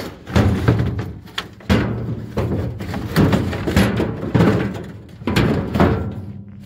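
A series of heavy, dull thuds and knocks, roughly one a second, each ringing off briefly.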